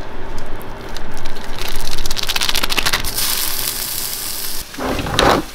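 Raw ground turkey dropped into hot oil in a cast-iron skillet, sizzling and crackling loudly from about a second and a half in, then settling into a steady hiss that eases off near the end.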